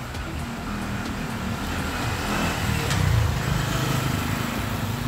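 Steady low rumbling background noise that swells slightly about three seconds in.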